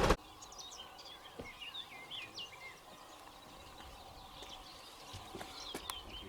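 Small birds chirping faintly in short, quick calls over a quiet background hiss, after a loud, rapidly pulsing mechanical noise cuts off abruptly at the very start.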